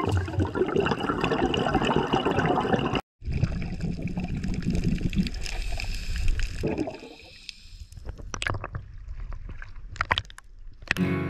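Scuba diver's exhaled air bubbles gurgling underwater from the regulator, in two stretches broken by a short cut. After about seven seconds this gives way to quieter splashing of water at the surface.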